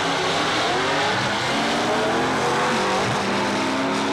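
Two drag-racing cars accelerating hard off the line side by side, their engines rising steadily in pitch, with a brief drop in pitch about three seconds in before they climb again.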